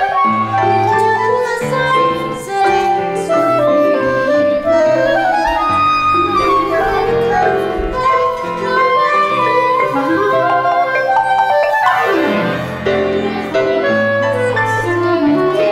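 Instrumental chamber-ensemble music with a woodwind melody, clarinet to the fore, playing steadily with no singing.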